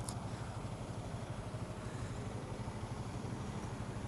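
A 2014 Honda CB150R's single-cylinder engine idling steadily.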